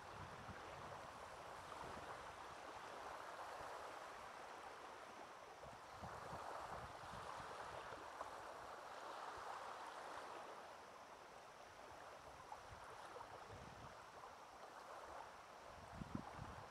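Small waves washing softly onto a pebbly shore: a faint steady wash that swells and eases every few seconds. Light wind buffets the microphone now and then, most near the end.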